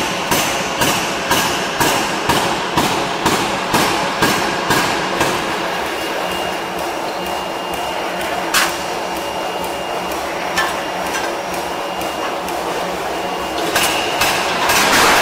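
Forging machine working a red-hot steel ring in its dies: a run of regular knocks, about two a second, gives way after about five seconds to steady machine noise. A single sharp clank comes past halfway, and more knocks near the end.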